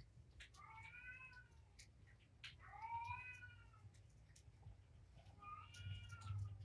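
A kitten meowing three times. Each call is a high-pitched mew about a second long that rises and then falls in pitch.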